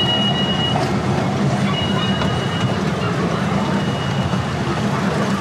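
Amusement-park ride-on train running steadily, a low rumble under a thin high whine that comes and goes three times.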